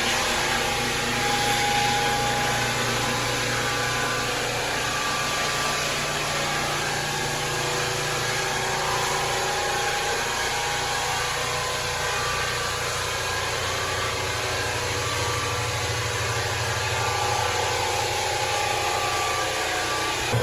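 Rented electric floor sander running steadily on hardwood floorboards: a constant motor hum under an even hiss.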